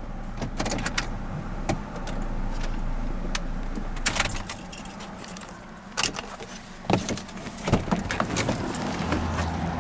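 Inside a moving vehicle's cab: a steady engine and road hum, with irregular clicks and rattles throughout.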